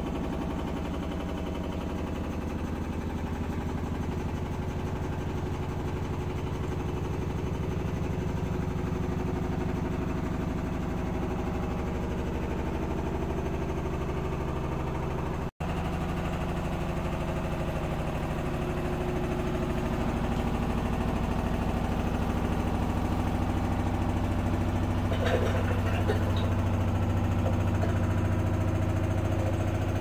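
LG F4V310SNEH direct-drive washing machine spinning its drum: a steady low hum with a fast rattling vibration, louder over the last third, with a few short clatters near the end. The owner believes the noise comes from the floor being a bit unstable.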